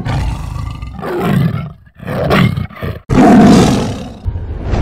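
Roars of a large animal, four in a row with short breaks between them; the last, starting about three seconds in, is the loudest and longest.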